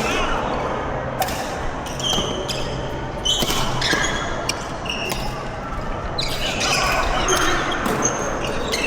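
Badminton rally: rackets striking the shuttlecock in irregular sharp hits about a second apart, with shoes squeaking on the court floor between shots.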